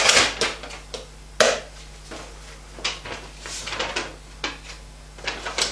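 Paper rustling and crinkling in a series of short bursts as a folded sheet is taken out and opened, with one sharp click about a second and a half in.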